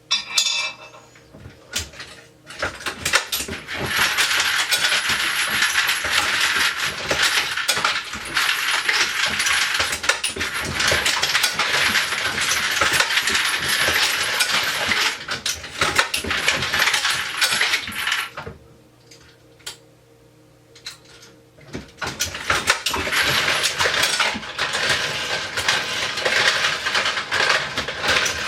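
Reloading-press feeders running: a dense metallic clatter of cartridge cases and bullets tumbling in rotating collator hoppers. It stops for about three seconds past the middle, then starts again.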